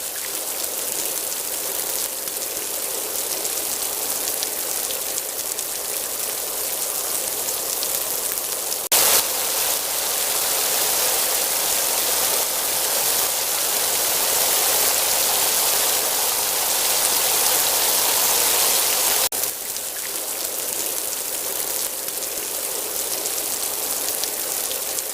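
Steady rain-like hiss, with a brief louder surge about nine seconds in and a short break a little after halfway.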